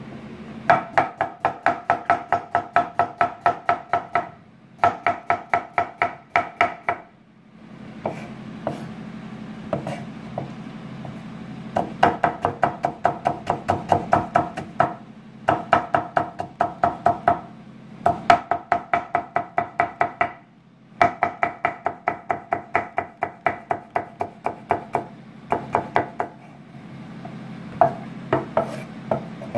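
Kitchen knife chopping carrots into thin strips on a wooden cutting board: quick, even knocks about five a second, in runs of a few seconds broken by short pauses.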